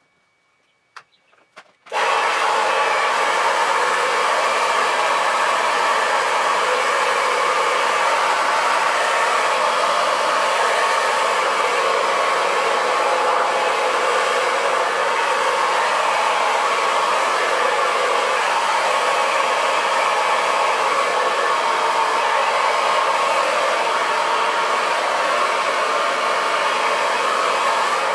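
Handheld blow dryer switching on suddenly about two seconds in, after a few faint clicks, then running loud and steady while drying a wet dog's coat.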